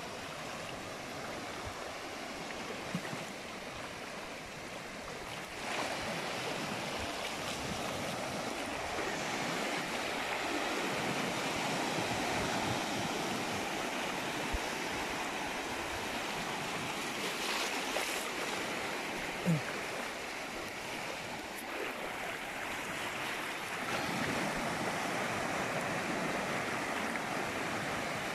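Small sea waves washing in over a shallow shore at low tide: a steady rush of surf that swells louder about six seconds in and again near the end. A brief low tone sounds about two-thirds of the way through.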